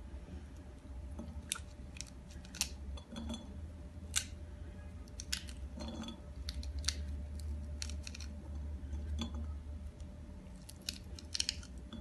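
Pomegranate arils being picked by hand from the pith and dropping into a glass bowl: irregular crisp clicks and crackles, some in quick clusters, over a steady low hum.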